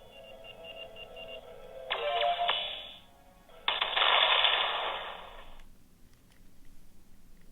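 Nokia N80 loudspeaker playing a ringtone tune with a quick run of high beeps, then two louder, noisier bursts, the second the loudest, which cuts off about two seconds later.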